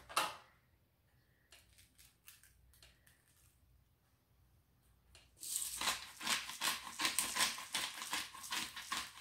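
A short knock at the start, then near quiet, then about five seconds in a hand-twisted pepper grinder grinding: a fast run of gritty clicks.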